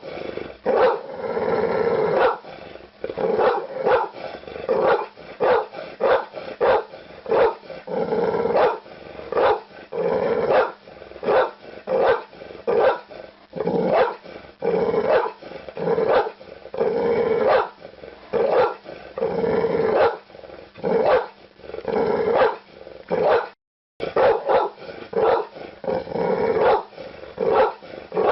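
Pit bull barking repeatedly and aggressively, about two barks a second, with a short silent break about 23 seconds in.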